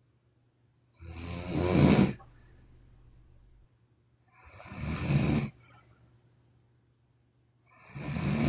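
A sleeping woman snoring: three loud snores about three and a half seconds apart, each building up and then cutting off sharply.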